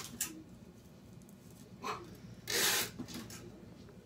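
Heavy thread being drawn by hand through a leather doll shoe and the eye of a button, in three short pulls; the longest comes about two and a half seconds in.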